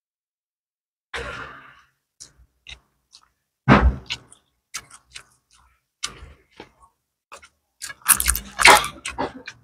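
Close-miked eating of crisp fried gourami by hand: scattered mouth clicks, smacks and chewing starting about a second in, with a loud crunch just before halfway and the loudest run of crunching and chewing near the end.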